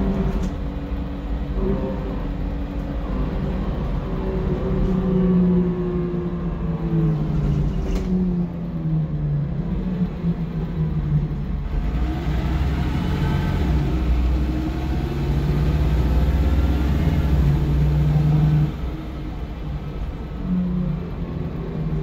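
MAN 18.240 bus's six-cylinder diesel engine heard from inside the saloon while under way, its note gliding up and down several times as it accelerates. It grows louder, with a deep rumble, for several seconds past the middle, then drops off suddenly.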